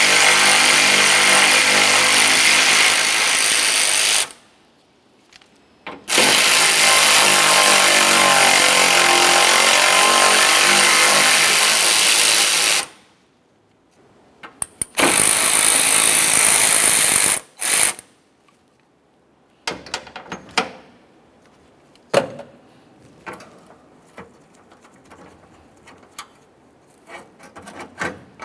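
Cordless electric ratchet spinning out 10 mm bolts, its motor whining in three long runs of a few seconds each with a short blip after them. Then only light clicks and knocks of the loosened metal parts being handled.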